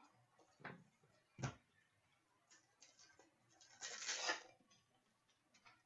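Trading-card pack wrapper crinkling as it is torn open by hand, a short rustle about four seconds in. Two soft knocks come earlier, from cards being handled.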